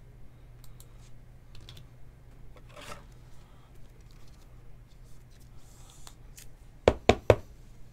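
A trading card being slid into a thin plastic penny sleeve: soft, scratchy plastic rustling. Near the end come three sharp knocks in quick succession, the loudest sounds here.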